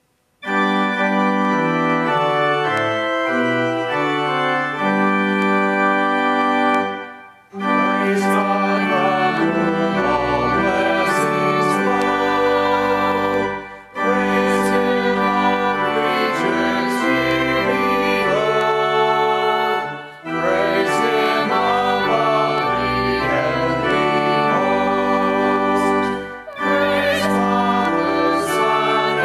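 Pipe organ playing slow held chords, in phrases of about six seconds with a brief break between each, like a hymn tune or sung response.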